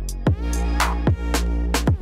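Background electronic music with a heavy beat: deep kick drums that drop in pitch, sharp snare hits and a sustained bass line.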